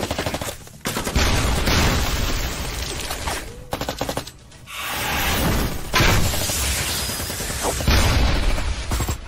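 Movie gunfight effects: a rapid burst of automatic gunfire, then several heavy booms, each followed by a long rushing hiss.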